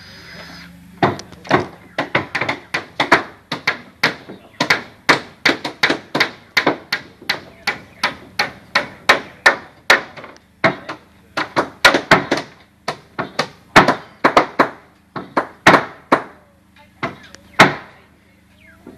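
Hammer striking timber over and over, about two to three blows a second in uneven runs, with a short pause near the end.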